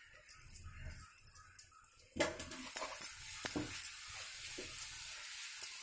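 A flat spatula scraping and stirring grated coconut through bubbling jaggery syrup in a wide pan. The boiling syrup hisses under it. From about two seconds in there is a steady hiss with repeated sharp scrapes of the spatula, as the coconut is worked into the syrup at its string stage.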